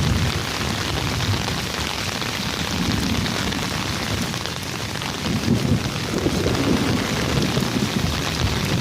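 Heavy rain falling steadily, with low rumbling underneath that comes and goes.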